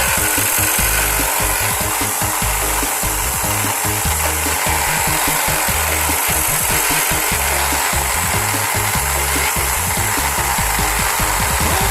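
Wood spinning on a home-made lathe powered by an electric drill, with a tool rubbing and scraping against it in a steady rasping noise.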